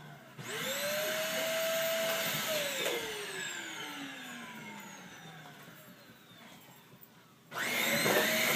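Vacuum cleaner motor switched on, whining up to speed and running for a couple of seconds. It then winds down with a slowly falling pitch. It starts up again abruptly near the end.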